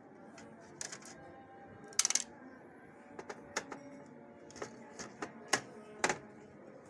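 A series of sharp clicks and knocks, a short cluster about two seconds in and single ones scattered after, as plastic parts of a Xerox WorkCentre 5855 document feeder are handled and worked during disassembly. Soft background music plays underneath.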